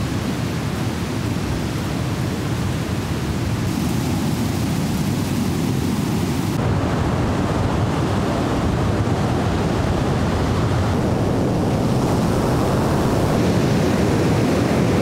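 Steady rush of ocean surf breaking on a sandy beach, a dense rumbling noise that shifts slightly in tone about four and about six and a half seconds in.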